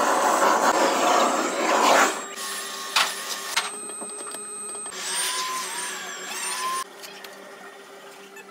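Machinery noise: a steady motor hum overlaid by loud stretches of rushing, hissing noise that start and stop abruptly, the loudest in the first two seconds and another about five seconds in.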